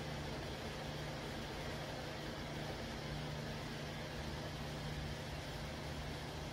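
Steady background hum with an even hiss, unchanging throughout, like a fan or appliance running.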